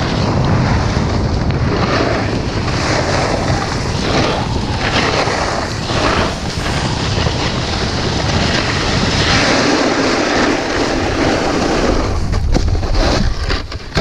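Wind rushing over the microphone together with a snowboard scraping and carving across snow during a run: a loud, steady rush that dips briefly a few times.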